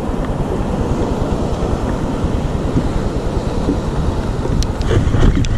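Wind buffeting the camera microphone over open sea, a steady low rumble with sea chop beneath it, and a few faint clicks near the end.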